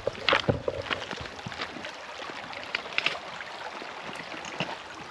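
Footsteps crunching and clattering on loose creek-bed stones, irregular, loudest in the first second and again about three seconds in, over a steady rush of flowing creek water.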